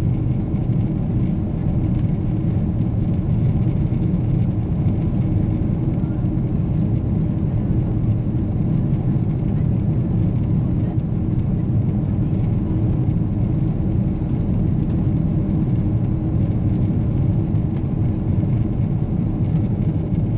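Boeing 777's engines and airflow heard from inside the passenger cabin as a loud, steady low rumble.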